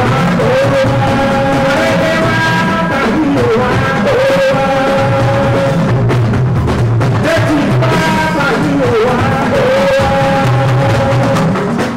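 A man singing live into a microphone with a band, holding long notes of a second or more at a time over steady drumming, amplified through a PA.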